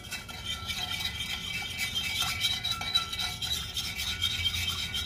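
Small wire whisk beating a thin milk-and-flour mixture in a stainless steel saucepan, its wires scraping and ringing against the metal pan in quick, continuous strokes.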